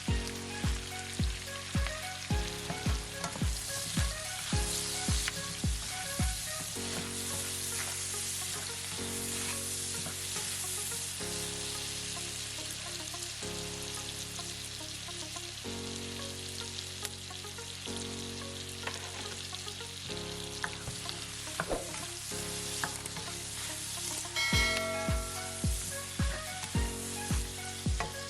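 Food frying and sizzling in a hot pan, heard over background music with a steady kick-drum beat that drops out after about seven seconds and returns near the end.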